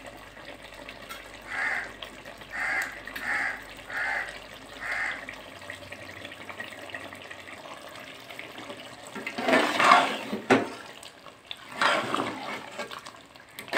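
Liver and tinda curry simmering in a large aluminium pot, making a steady bubbling hiss as it cooks down in its ghee. Five short calls, about a second apart, sound in the background in the first five seconds. About nine and a half seconds in, and again near twelve, a ladle stirs and scrapes through the pot; these are the loudest sounds.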